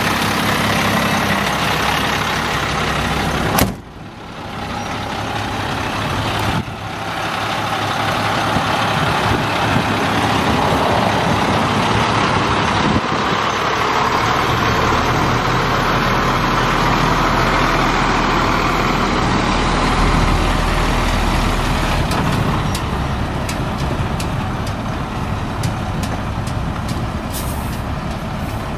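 A 1996 International truck's turbo diesel engine idles. Then the truck runs and drives away, with its engine rumble growing stronger as it pulls off.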